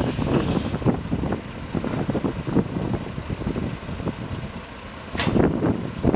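A tipper truck's diesel engine idling, with wind buffeting the microphone in uneven gusts.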